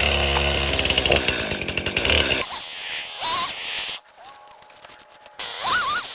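Stihl MS261 two-stroke chainsaw running, loud for the first two and a half seconds, then heard in shorter, quieter stretches with its pitch rising and falling as the throttle and cutting load change.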